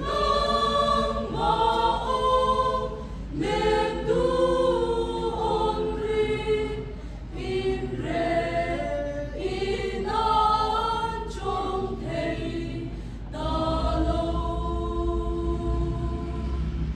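Mixed choir of men's and women's voices singing a Mizo gospel song together in phrases, with a longer held chord near the end.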